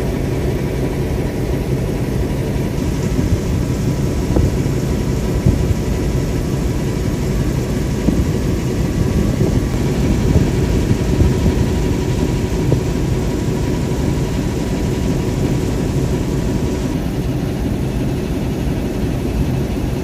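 British Rail Class 08 diesel shunter's English Electric six-cylinder engine idling steadily.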